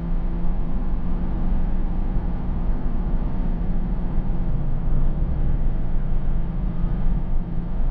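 Steady rumble of a car on the move: continuous low engine hum and road noise with no change in pitch or level.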